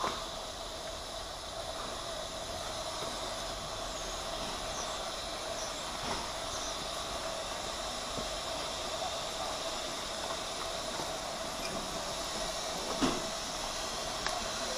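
Steady hiss of steam from a standing steam locomotive, with a faint steady tone running through it and a few light knocks, the loudest about 13 seconds in.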